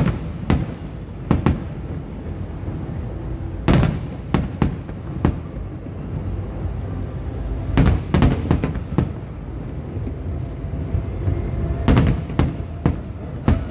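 Aerial firework shells bursting, the sharp bangs coming in quick clusters every few seconds over a continuous low rumble.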